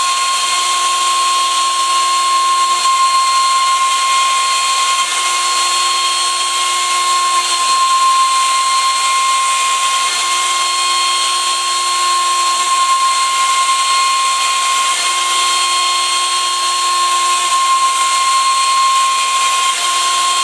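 CNC router spindle running with a steady high-pitched whine as a 1/4-inch end mill roughs out a pocket in aspen, 0.100 inch deep at 150 inches per minute. A lower hum joins in for a few seconds at a time, several times.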